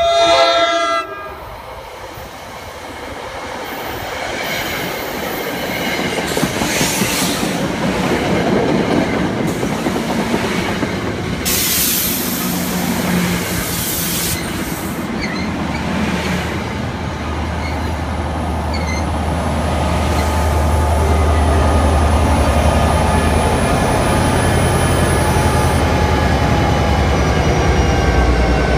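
New Jersey Transit commuter train: a Nathan K5LA air horn chord cuts off about a second in, then the train passes close by with a steady rush of wheel and rail noise and bursts of high hiss around the middle. From about halfway a low, steady engine drone comes in as the locomotive at the rear draws near.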